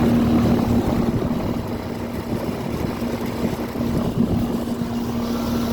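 1992 Carrier 38CK air-conditioner condensing unit running: a steady hum from its Copeland compressor under the even rush of the condenser fan. The unit is running well.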